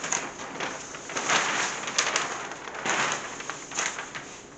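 Large paper plan sheets rustling and crinkling as they are handled and spread flat, in several uneven bursts.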